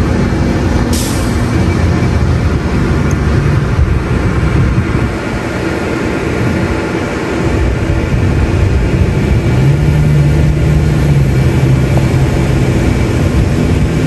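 A bus engine idles with a steady, loud rumble and low hum, and a short hiss about a second in.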